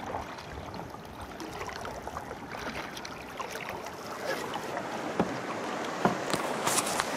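Canoe paddling across a lake: a steady wash of water around the hull and paddle strokes, with a few sharp knocks or splashes in the second half.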